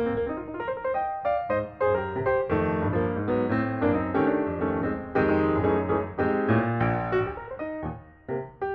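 Background piano music: a melody of many quick notes over chords, with a brief softer moment near the end.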